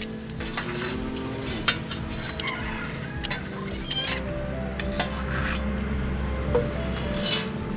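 Fish and potato curry boiling hard in a wide iron wok, bubbling and sizzling with frequent sharp pops and crackles scattered irregularly through the sound.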